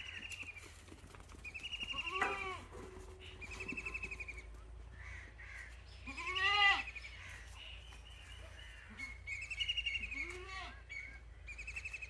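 Goats and kids bleating: three deeper bleats a few seconds apart among repeated higher, quavering bleats.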